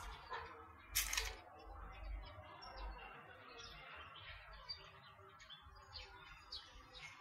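Faint outdoor ambience: scattered short, high chirps, with a brief loud rustling burst about a second in, over a low rumble.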